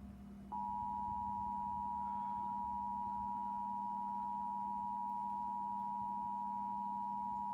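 Emergency Alert System attention signal: two steady tones of 853 and 960 Hz sounded together through a television, starting about half a second in. It announces an emergency alert, here a severe thunderstorm warning.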